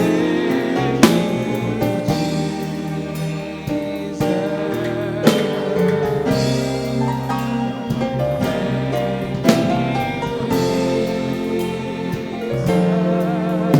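Slow gospel worship music: held chords that change every few seconds, with a sharp accent about every four seconds.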